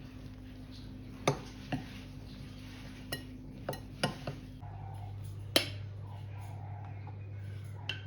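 Kitchen utensils clinking against dishes and bowls: several separate sharp clinks and taps, spread irregularly, over a steady low hum.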